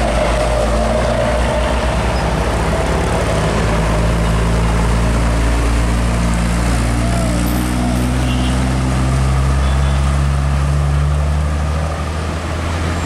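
Diesel engines of heavy cargo trucks running as the trucks pass close by one after another, a loud low engine note that shifts slowly in pitch, with road noise under it.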